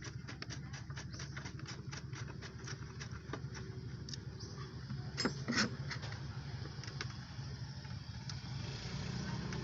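An engine running steadily at idle, with quick light clicks in the first few seconds and two sharper knocks about five seconds in.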